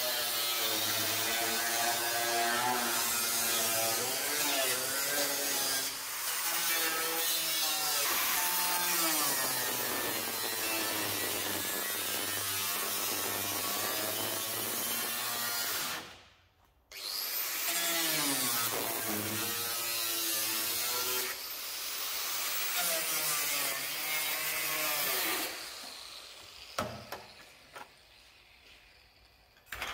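A handheld power cutting tool running and cutting into a car's steel sill, its pitch sagging and rising as it bites into the metal. It stops for about a second part way through and starts again, then cuts off near the end, followed by a few light knocks.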